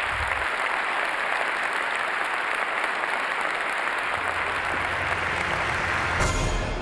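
A large audience applauding, a dense, even sound of many hands clapping at a steady level.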